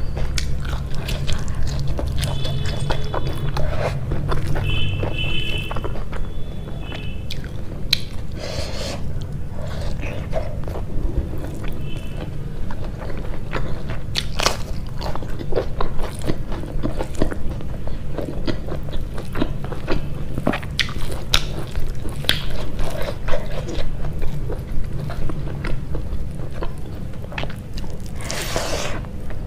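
Close-miked eating: crunchy bites into a raw green chili and fresh greens, with chewing and wet mouth sounds, many short crisp clicks throughout.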